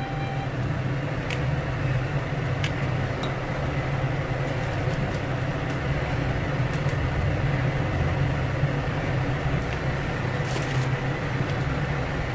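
A steady low mechanical hum, with a few faint light clicks of a metal spoon as it spreads miso on skewered grilled eggplant.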